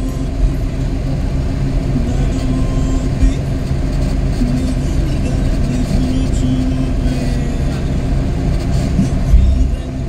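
A vehicle driving along a road, a steady low rumble of engine and tyres, with music playing over it.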